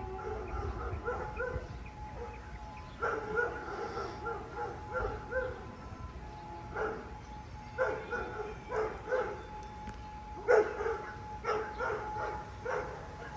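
A dog barking repeatedly in clusters of short barks, over the faint steady tone of a distant outdoor warning siren.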